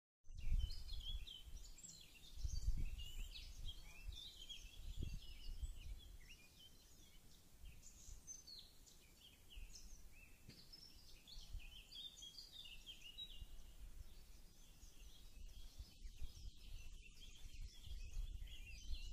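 Several songbirds singing, a continual mix of short chirps and trills, over a gusty low rumble of wind on the microphone that is strongest in the first few seconds.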